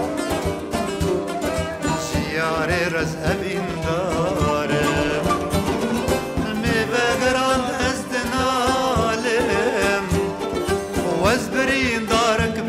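A man singing a folk song, accompanying himself on a long-necked plucked lute with a round body.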